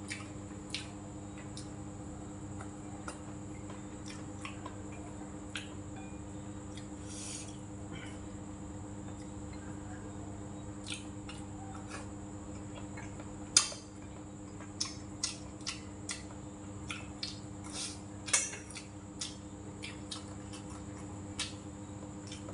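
A person eating: chewing, with scattered clicks of a metal spoon and chopsticks against bowls, the sharpest clinks a little past halfway and again a few seconds later, over a steady hum.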